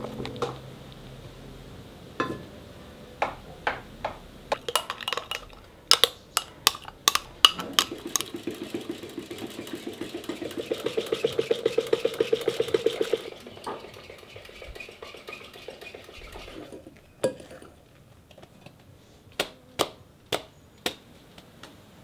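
Wire whisk beating a white creamy mixture in a glass bowl: a fast, even run of strokes, about six a second, for several seconds in the middle. Before and after it, scattered sharp clinks of whisk and spoons against glass bowls.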